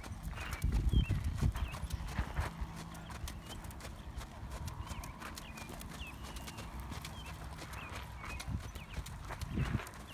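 Horse's hooves beating in a steady rhythm on a sand-and-gravel arena as it trots under a rider.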